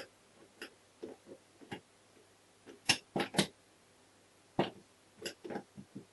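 Metallic clicks and clunks from the Honda MT5's four-speed gearbox as it is shifted by hand in the open crankcase half. The clicks come at irregular intervals, with a quick run of three about three seconds in.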